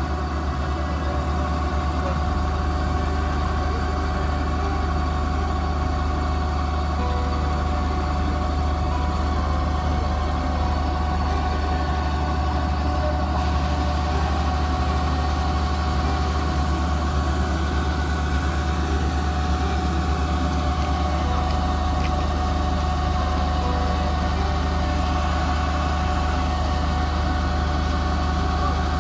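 Kubota DC-68G combine harvester running steadily while its unloading auger pours paddy into a tractor trailer: an even engine hum with a couple of steady whining tones over it.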